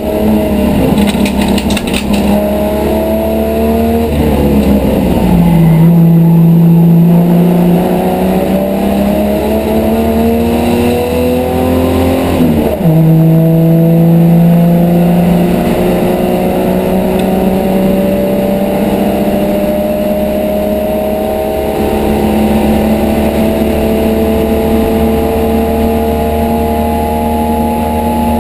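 Race car engine heard from inside the cabin while accelerating, its pitch climbing steadily through the gears. It drops sharply at upshifts about five seconds in and again about twelve and a half seconds in, then climbs slowly in one long pull.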